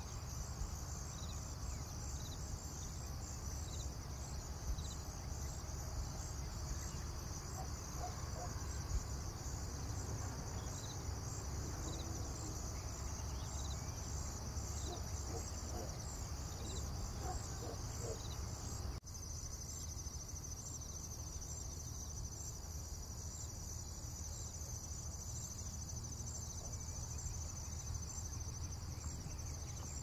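High, steady chirring of insects over a low rumble of background noise, with a few faint short sounds in the middle. About two-thirds of the way through, the chirring changes abruptly to a finer, even pulsing.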